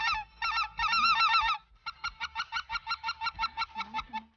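Geese honking: a run of loud, wavering honks, then a quick string of short clipped honks, about six a second.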